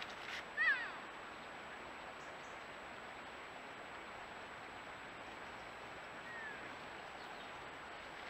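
Deer calf bleating: a short, high, falling call just under a second in, and a fainter one about six seconds in, over a steady background hiss.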